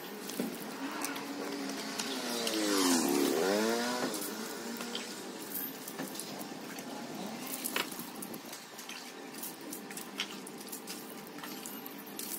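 Water poured and splashed over a motorcycle being washed by hand, with scattered drips and splashes. A vehicle passes in the street, swelling up and fading away, loudest about three seconds in.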